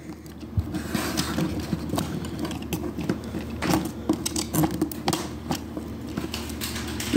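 Irregular sharp clicks and scraping of a plastic dinosaur action figure's leg joints as the rear legs are moved by hand, over a steady low hum.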